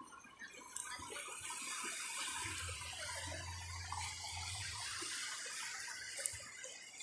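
Shallow seawater splashing and trickling as a metal pole is jabbed and stirred through it, starting about half a second in and easing off near the end.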